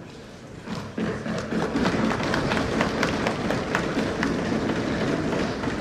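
Applause from the members of the House: a dense run of many quick hand or desk strikes that starts about a second in and eases off near the end.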